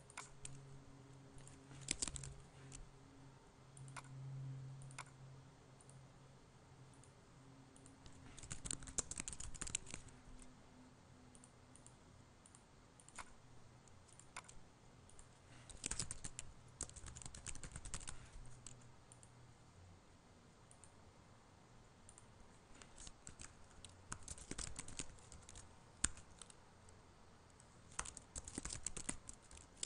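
Typing on a computer keyboard in several short bursts, with single mouse clicks in between.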